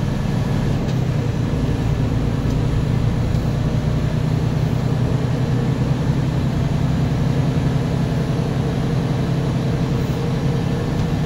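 Semi-truck diesel engine heard from inside the cab, a steady low drone as the truck rolls slowly at an even speed.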